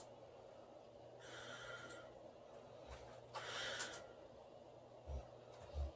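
A sleeping woman breathing faintly: two airy breaths about two seconds apart, then two short, low thumps near the end.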